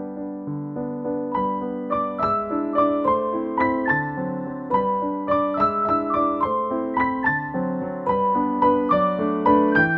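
Background piano music: a melody of single struck notes over lower chords, busier and higher after about a second.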